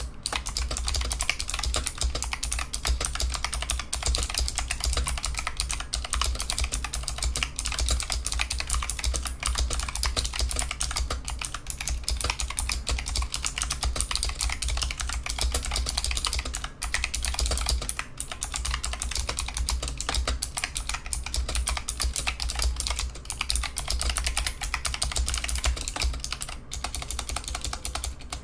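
Razer Huntsman V2 keyboard with Razer optical purple clicky switches being typed on fast and continuously, a dense stream of sharp key clicks with a few brief pauses.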